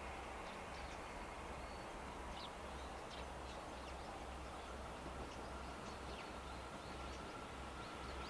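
Quiet outdoor ambience beside an empty railway line: faint scattered bird chirps over a low, uneven rumble, with a faint steady high tone coming in during the second half.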